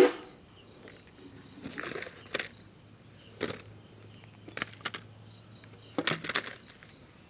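Steady high-pitched insect chirping, with a few scattered light knocks and clinks from a stainless steel tray being tapped and lifted off a slab of set burfi.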